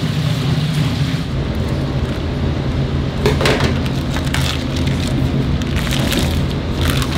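Chicken pieces deep-frying in a vat of oil: a steady sizzling hiss over a low machine hum, with a few clinks a few seconds in and again near the end.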